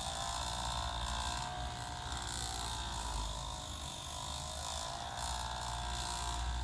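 Hands rubbing and kneading a head and shoulders during a massage: a continuous scratchy friction of fingers on hair and skin.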